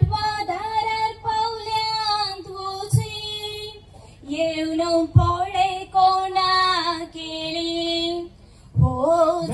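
A woman singing without accompaniment, holding long, wavering notes in two phrases with a short breath between them, and starting a third near the end.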